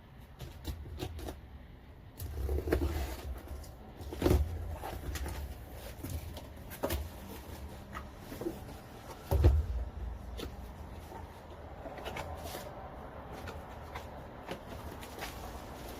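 Cardboard parcel being unboxed by hand: scattered clicks, rustles and knocks as the box and its contents are handled, with a few dull thumps, the loudest about nine and a half seconds in.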